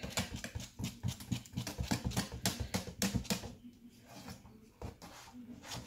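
Wire whisk beating thick handesh batter of rice flour and jaggery in a metal saucepan, in quick rhythmic strokes of about five a second that clatter against the pot. The beating eases off a little past halfway and picks up again near the end.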